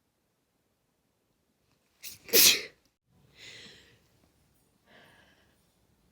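A person sneezing once, about two seconds in: a short intake, then one loud, sharp burst. Two softer breaths follow.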